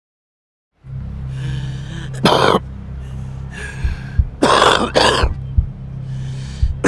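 A person coughing a smoker's cough: harsh, raspy coughs, one hard cough a little over two seconds in and two more in quick succession around the middle, with quieter throat-clearing sounds between, over a steady low hum.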